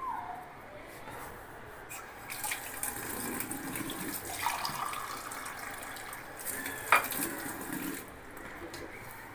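Water running from a tap into a container for about six seconds, with one sharp clink near the end.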